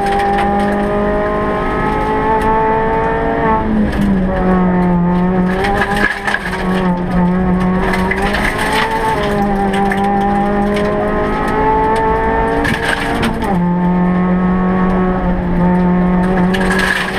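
Suzuki Swift Sport rally car's 1.6-litre four-cylinder engine heard from inside the cabin, running hard on a stage with the revs rising and falling. The pitch drops sharply about three and a half and thirteen and a half seconds in, and the engine briefly lets off near six seconds.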